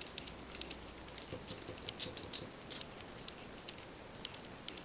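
Scattered, irregular light clicks and taps from a dog moving about and handling a ring-toss ring.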